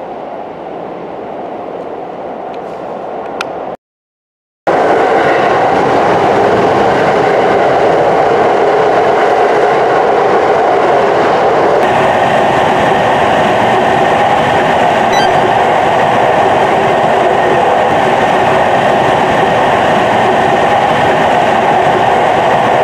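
Train running at speed through a long rail tunnel, heard from on board: a steady, loud running noise of wheels on rails. It drops out to silence for about a second near the start, then comes back louder and holds steady.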